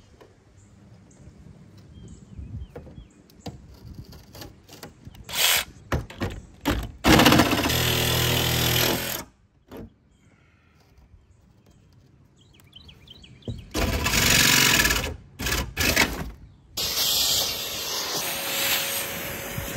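Cordless jigsaw cutting through the Sprinter van's sheet-steel roof in loud bursts with short pauses between them. Near the end a vacuum starts and runs steadily.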